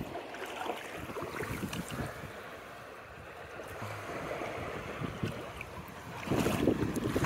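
Gentle surf washing at the shoreline with wind blowing across the microphone, and a louder rush of wind noise near the end.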